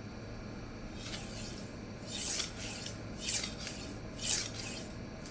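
A 52100 steel knife edge scraping across a resin-bond diamond sharpening stone in four light passes about a second apart. The rasp is the burr on the hardened edge breaking loose on the stone during deburring.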